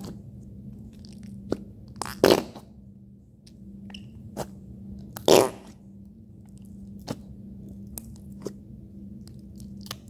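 Flarp noise putty squeezed and pushed into its tub, letting out two loud squelching fart noises about two and five seconds in, with small squishing clicks between.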